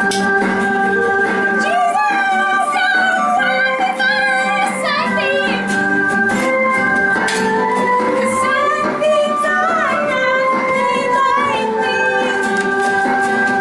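Live band music: singing over long held chords.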